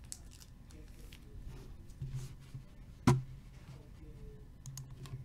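A trading card in a clear plastic holder being handled, making faint rustles and light clicks. There is one sharp click about three seconds in and a few lighter ticks near the end.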